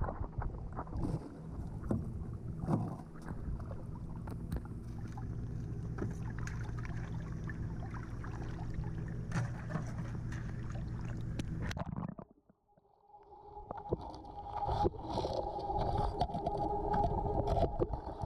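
A boat's engine running, heard underwater as a steady low hum with scattered clicks. About twelve seconds in it drops away almost to nothing for a moment, then a steady higher-pitched hum with crackling clicks takes over.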